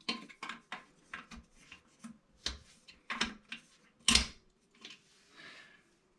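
A ratcheting wrench clicking in short strokes as it tightens plastic toilet-seat hinge nuts, with a louder sharp snap about four seconds in. The snap is the nut's breakaway piece breaking off at full torque.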